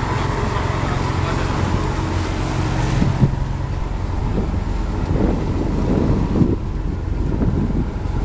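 A small passenger boat's engine runs steadily underway. From about three seconds in, wind buffets the microphone in gusts.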